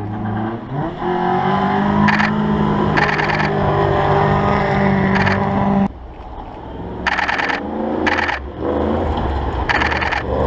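Rally car engines on a gravel forest stage. One car's engine is held at high revs as it passes, then drops away sharply about six seconds in. A second car's engine then comes closer, rising in pitch as it accelerates, with short bursts of hiss throughout.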